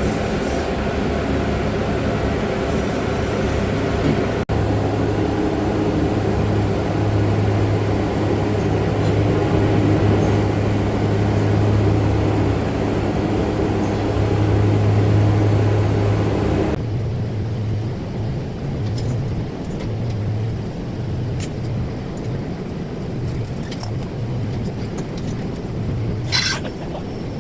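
TIG welding arc on a 3 mm stainless steel plate: a steady buzzing hum with a hiss, which cuts off about 17 seconds in, leaving a lower background hum and a few short clicks near the end.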